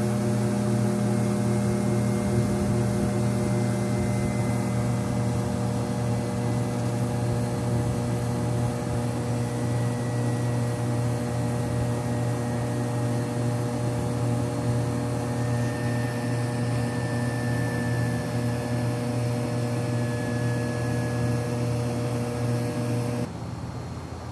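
Beckman J2-21 refrigerated centrifuge running with its rotor at about 11,000 rpm: a steady machine hum made of several tones, with a faint high whine that drifts slowly down in pitch. Near the end, part of the hum cuts off abruptly and the sound drops.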